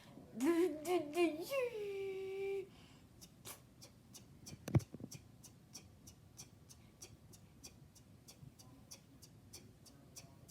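A woman's vocal imitation of a 1999 Toyota Corolla cold start: a wavering hummed cranking sound that catches and settles into a held idle tone, ending about two and a half seconds in. Then mouth clicks imitating the turn-signal blinker follow as a steady run of quick ticks, with one low thump about five seconds in.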